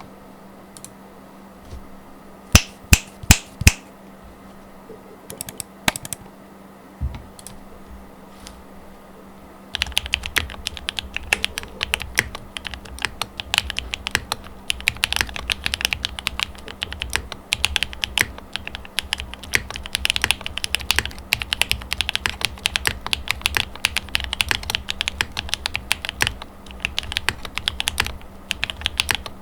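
Mode 80 tenkeyless mechanical keyboard with Gateron Black Ink V2 linear switches and GMK Botanical keycaps being typed on. It starts with a few separate keystrokes, four loud ones in quick succession a few seconds in, then changes to continuous fast typing about ten seconds in.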